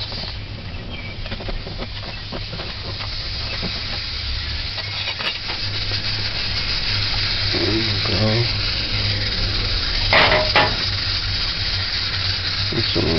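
Steady hiss under the light clatter of a metal loaf pan and a china plate being handled as a baked cake is turned out, with a louder knock about ten seconds in.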